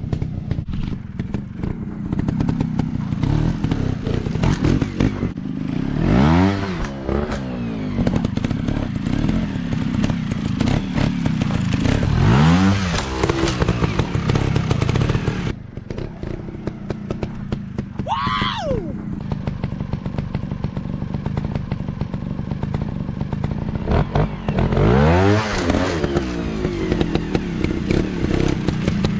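Dirt bike engines running. The engine pitch swells up and drops back three times as the bikes are revved or ride by, over a steady low engine drone, and a brief higher-pitched whine rises and falls about midway.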